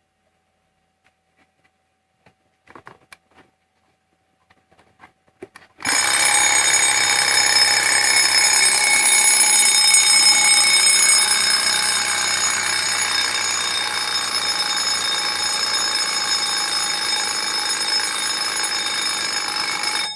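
A 1960s Argentine Sombol mechanical alarm clock going off: its bell rings loud and continuously for about fourteen seconds, starting suddenly about six seconds in after a few faint clicks, then stopping abruptly.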